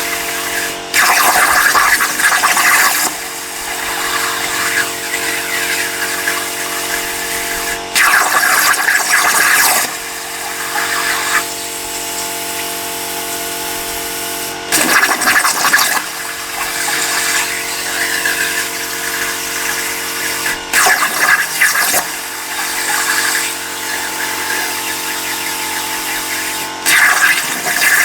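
CNC plasma cutter working steel over a steady machine hum. The plasma arc hisses loudly in bursts of about two seconds, each starting abruptly, five times at roughly six-second intervals.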